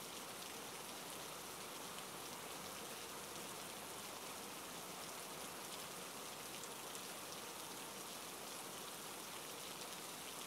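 Steady rain falling, a soft, even hiss of rain.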